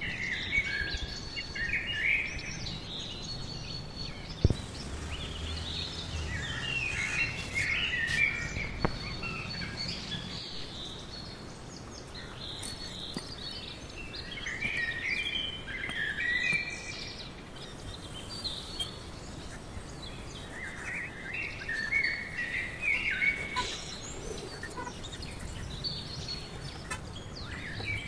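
Small birds chirping and calling in repeated short bursts, over a steady outdoor background hiss. A single sharp knock sounds about four and a half seconds in, with a fainter click a few seconds later.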